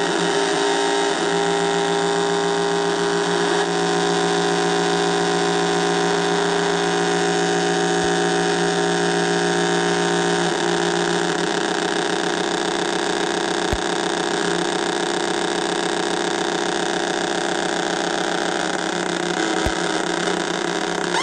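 Homemade drone synthesizer of three 555-timer square-wave oscillators playing several steady tones at once, their pitches pushed up and down by three more 555 low-frequency oscillators. The tones change several times as the knobs are turned, with a few faint clicks.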